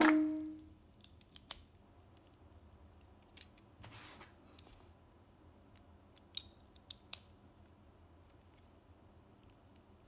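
Plastic LEGO bricks clicking and knocking as hands fit parts onto a model and turn it over: a few scattered sharp clicks and one short scrape.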